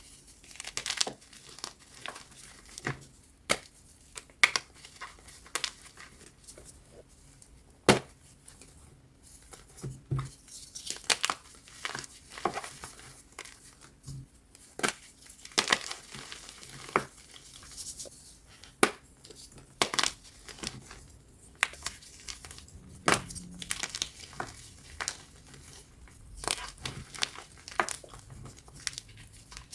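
Blocks of BSN gym chalk dusted with baby powder being crushed, giving irregular sharp crunches and crackles.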